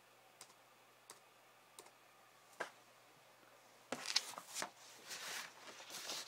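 Computer keyboard keys struck repeatedly to fire the same shortcut again and again: faint single clicks about every 0.7 s, then a louder, busier clatter of keys from about four seconds in.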